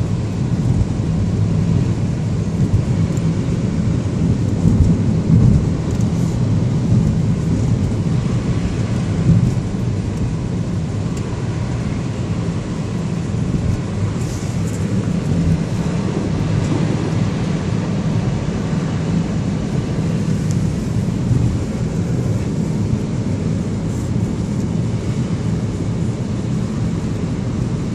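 Steady low rumble of a car driving on a snowy road, engine and tyre noise heard from inside the cabin, with a few brief louder bumps.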